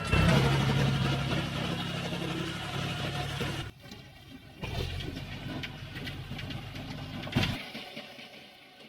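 Tractor engine running steadily, cutting off abruptly about four seconds in; after a short gap a quieter engine sound comes back and fades away, with one sharp click near the end.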